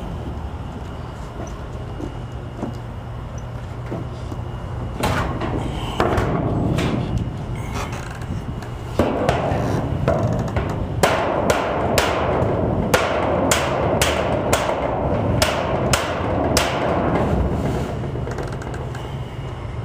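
Hammer blows on a dented metal carport roof panel as dents are beaten out, a few separate strikes at first, then a run of about two strikes a second near the middle.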